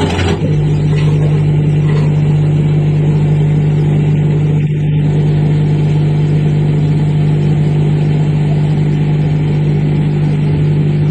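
Siemens washing machine drain pump running with a loud, steady hum as it pumps the water out of the drum. It has just been cleared of a coin blockage and works, but it is quite noisy, which the engineer takes as reason to offer a new pump.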